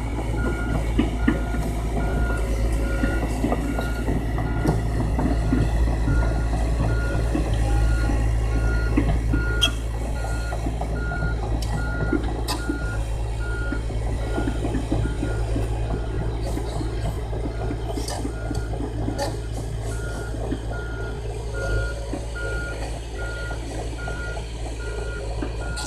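Heavy machinery's backup alarm beeping at an even pace, pausing twice in the second half, over a diesel engine running steadily. Scattered clicks and knocks come through.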